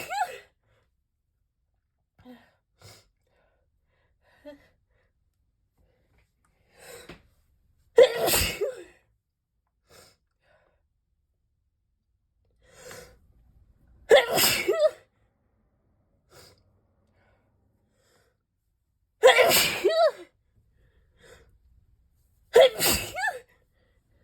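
A person sneezing four times, a few seconds apart, each loud sneeze preceded by a short, audible intake of breath. The sneezes are set off by a sneeze-inducing (chhinkni) spray.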